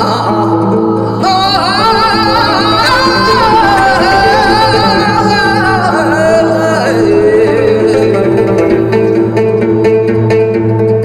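Live music: a singer holds long, wavering notes with heavy vibrato in a Korean folk-song style over plucked-string accompaniment. The voice drops out about seven seconds in, leaving the plucked strings playing on.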